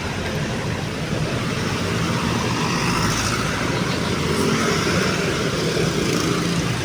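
Steady road traffic: cars and other vehicles running past, engine hum and tyre noise blending into a continuous roar.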